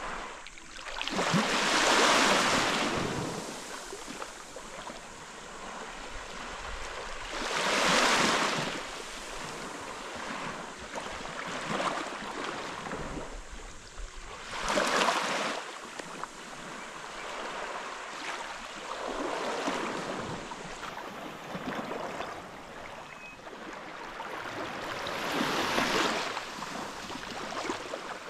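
Sea waves washing onto the beach: five swells of surf, roughly every six seconds, with a steady hiss between them.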